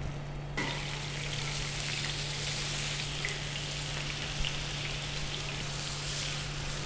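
Marinated beef slices sizzling in ghee on a tawa as more slices are laid on to shallow-fry: a steady hiss with small crackles that starts suddenly about half a second in.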